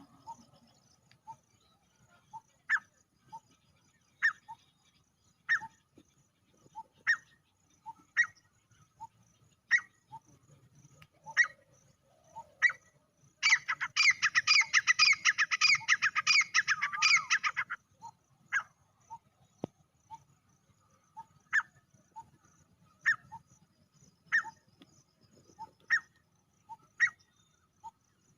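Male grey francolin calling: short, sharp call notes about every one and a half seconds. About halfway through comes a loud, rapid run of repeated notes lasting about four seconds.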